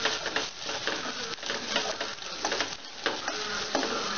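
Onions, green chillies and ginger-garlic paste sizzling in oil in a pot, stirred with a wooden spoon that scrapes against the pot at irregular intervals.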